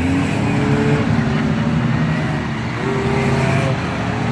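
Engines of several enduro race cars running on the oval, with overlapping engine notes that rise and fall in pitch as the cars circle the track.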